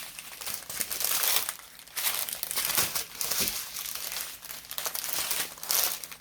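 Plastic packaging crinkling and rustling as it is handled and opened, in several crackly stretches with short pauses between them.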